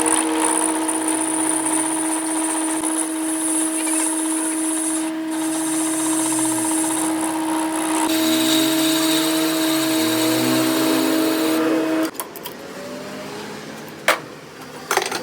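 A workshop machine running with a steady whine and hiss. It stops about twelve seconds in, leaving quieter handling noise with a couple of sharp metallic knocks near the end.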